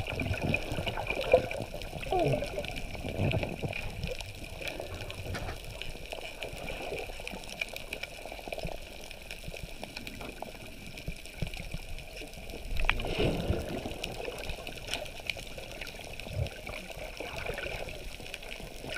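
Muffled water sound heard through an underwater camera housing: a steady wash with gurgles and small knocks, swelling louder about thirteen seconds in.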